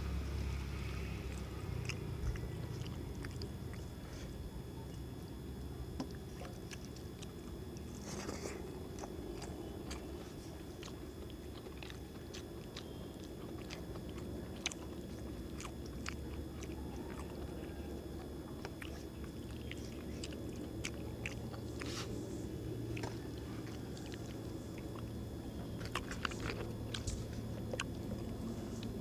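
A man chewing a mouthful of rice eaten by hand, with biting and mouth sounds and many small, scattered clicks over a steady low background.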